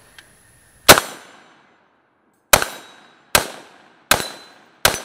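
Five rifle shots from a 5.56 Galil ACE, fired one at a time, each with a short echoing tail. The first comes about a second in and is the loudest; the rest follow less than a second apart.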